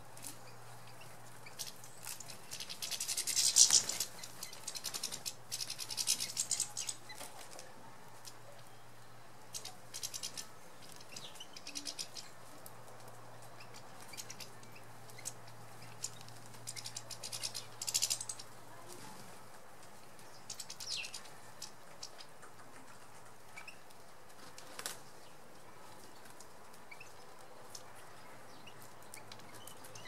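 European goldfinches at a seed feeder: short, irregular bursts of high chirping and wing flutter, loudest about three seconds in and again just before the middle, over a faint steady low hum.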